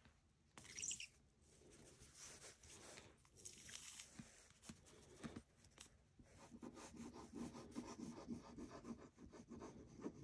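Faint handling sounds of paper crafting: paper rustling and rubbing with a few light clicks, as a glue bottle is picked up and used on the paper.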